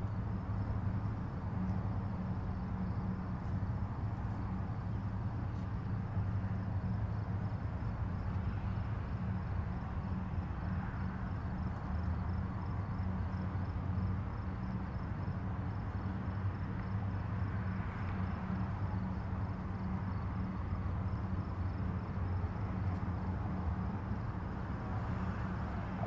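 Steady outdoor background noise dominated by a low, even hum, with a faint high pulsing tone throughout.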